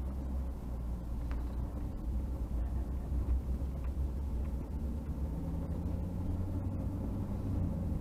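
Vehicle engine and road noise heard inside the cab, a steady low rumble as the vehicle pulls away from a stop, turns and drives on. A few faint ticks sound over it.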